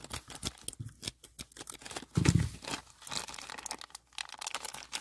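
Crinkling and crackling of a sealed plastic toy bag being squeezed and pulled at, with one louder crackling burst a little after two seconds in.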